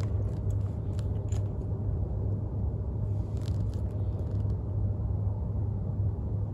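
Steady low background rumble, with a few faint clicks and ticks.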